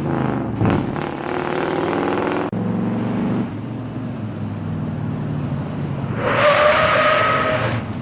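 Pickup truck's 350 small-block V8 running and revving in a string of short cut clips. About six seconds in, a loud hiss with a steady high squeal rises over it for about a second and a half.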